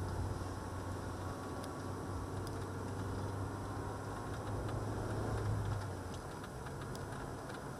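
Steady engine and tyre noise inside a moving car's cabin: a low hum over road rumble, with a few faint ticks.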